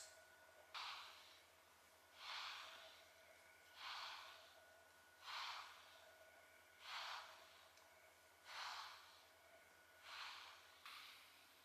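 Soft, faint rushing strokes of a pet brush drawn through a cat's thick fur, about one every second and a half.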